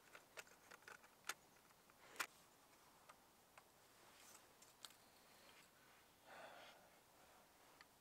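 Faint clicks and knocks of a camera tripod being set up: legs unfolding and extending with their locks snapping, and the ball head being handled. The sharpest click comes about two seconds in, with a brief soft rustle near the end.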